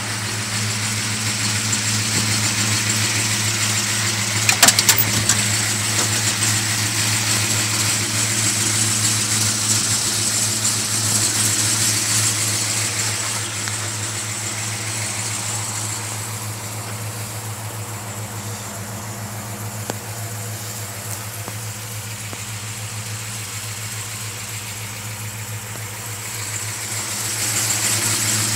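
The truck's 428 cubic-inch Ford V8, with headers and Magnaflow exhaust, idling steadily. A few sharp clicks sound about five seconds in, and the idle is quieter for a stretch past the middle.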